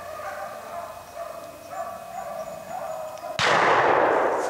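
Rabbit hounds baying on the chase: long, wavering howls in the distance. About three and a half seconds in, they are buried under a sudden loud rushing noise that stops abruptly at the end.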